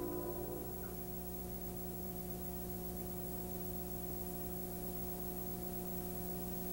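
Steady electrical hum with a constant hiss, a few fixed tones over an even noise floor. The last ringing notes of a strummed acoustic guitar fade out in the first moment.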